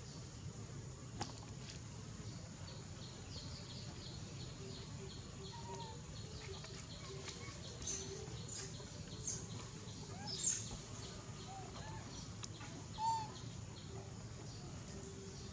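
Short, high animal chirps and squeaks, with a quick run of chirps in the first half and a few louder calls in the second half, over a steady low rumble.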